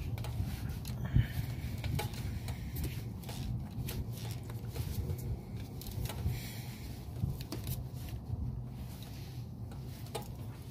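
Ratchet wrench and socket extension clicking and clinking against metal as a spark plug is loosened and drawn out of its well, with scattered sharp clicks over a steady low rumble.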